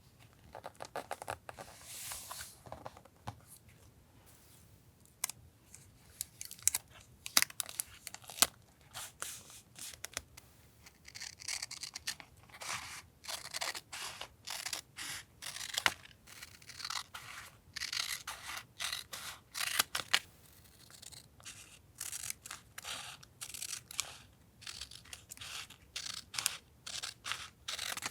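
Close-up paper handling for collage journaling: sheets and stickers rustling and tearing in irregular bursts, with many sharp clicks.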